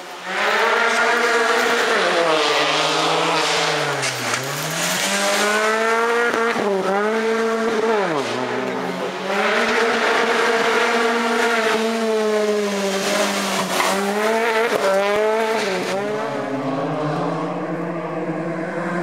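Citroën DS3 rally car's engine revving hard on a rally stage. Its pitch climbs and drops several times as it shifts and brakes for the bends, with a few quick sharp dips.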